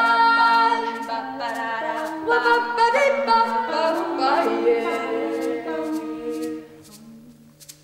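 A cappella vocal ensemble singing wordless sustained chords in close harmony, moving through several chord changes and fading down near the end.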